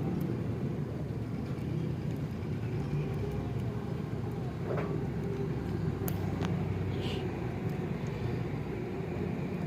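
Steady low vehicle rumble with a few short sharp clicks as a jumper wire is touched to the starter motor's wire and sparks. The starter does not crank, a sign of its failed solenoid.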